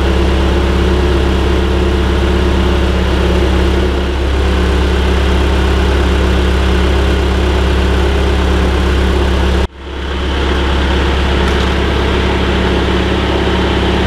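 John Deere 310SE backhoe's diesel engine idling steadily, with a brief break about ten seconds in.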